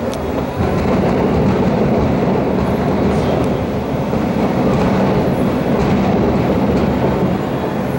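Fireworks over the bay booming in quick succession, the reports running together into a continuous low rumble with a sharper crack at the start.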